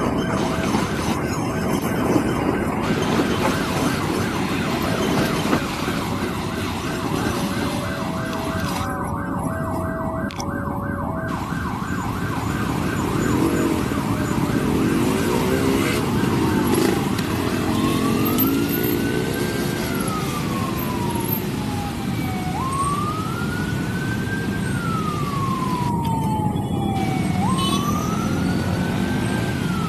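A train rolls past a level crossing with the crossing alarm ringing rapidly. About halfway through, an ambulance siren starts wailing, rising and then falling slowly about every five seconds over the traffic.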